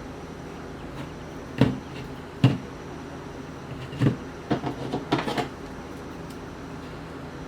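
Objects being handled and set down on a hard surface: two single knocks about a second apart, then a quick run of knocks and clatter, over a steady low hum.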